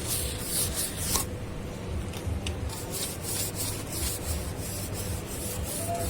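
Scrubbing the detergent-lathered condenser of a window air conditioner: scratchy rubbing strokes, about three a second, with a brief pause about a second in.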